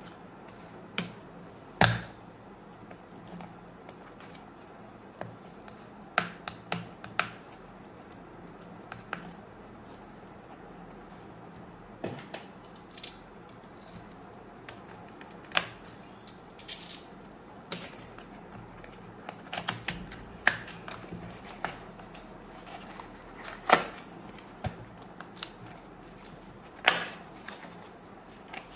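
A small cardboard box and a plastic snap-off utility knife handled on a tabletop while the box's seal is slit open: scattered sharp clicks, taps and short scrapes, a few louder knocks among them, the strongest about two seconds in and near the end.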